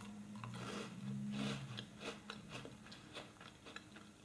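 A crisp chocolate-filled sandwich biscuit (Príncipe) bitten into and chewed: a run of small crunches and crackles.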